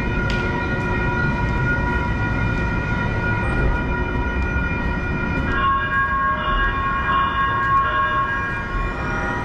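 Light-rail train standing at a station platform, its electrical equipment giving a steady whine of several pitches over a low rumble. A little past halfway a second, higher whine comes in.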